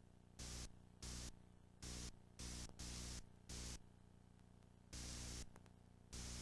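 Recording noise only: a steady electrical hum with a loud static hiss that cuts abruptly in and out in short bursts, about seven times, with no crowd or commentary to be heard.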